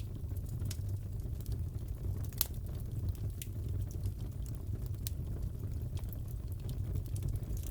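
Crackling wood fire in a fireplace: a steady low rumble with scattered sharp pops and crackles, the loudest about two and a half seconds in.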